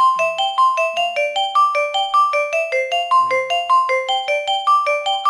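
Xiaomi phone ringtone playing: a quick, even melody of short, struck, marimba-like notes, about four or five a second.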